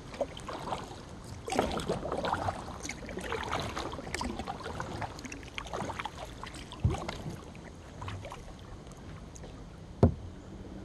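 Kayak paddle strokes: blades dipping into calm river water and splashing in uneven bursts, with drips off the blades. There is a smaller knock partway through and a sharp, louder knock near the end.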